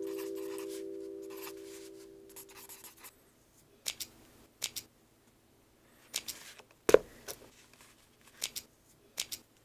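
Pencil writing on paper: short scratchy strokes with brief pauses and one sharper tap about two-thirds of the way in. A held musical chord fades away over the first three seconds.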